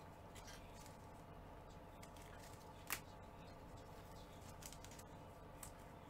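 Near silence: room tone with a steady low hum, a few faint light ticks, and one sharp click just under three seconds in.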